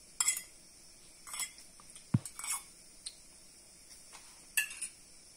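A metal teaspoon clinking and tapping against a kadai as teaspoons of oil are spooned in: about five short, separate clinks, one a duller knock about two seconds in.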